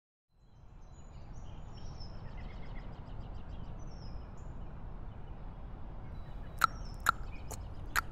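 Outdoor ambience fades in: a steady low rumble with faint bird chirps. About six and a half seconds in, a horse's hooves start to clip-clop in sharp knocks, roughly two a second.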